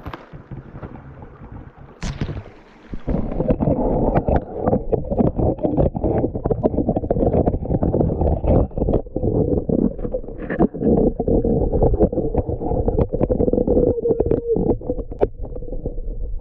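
Muffled rushing and gurgling of stream water heard through a submerged GoPro's waterproof housing, with many rapid knocks and clicks against the case. It grows much louder about three seconds in, with everything above a low rumble cut off.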